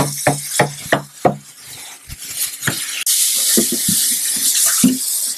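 Plastic jug knocking and being handled at a sink. About three seconds in, the tap water comes on with a sudden steady hiss and splash as the jug is filled.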